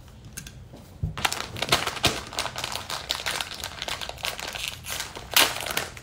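Plastic mystery bag crinkling and crackling as it is handled and torn open at the top, starting about a second in with a rapid run of small crackles.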